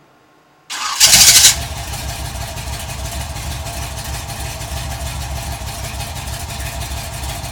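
1986 Chevrolet Monte Carlo engine starting under a second in, with a short loud flare as it catches, then settling into a steady idle with an even low exhaust pulse.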